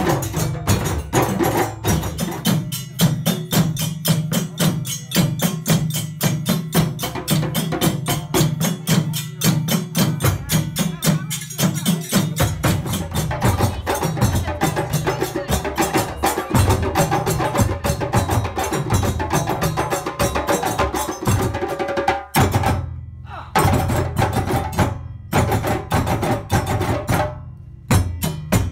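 West African-style drum ensemble of djembes and stick-played dunun barrel drums, playing a fast, dense interlocking rhythm. In the last third the whole group stops dead for short breaks a few times and comes back in together.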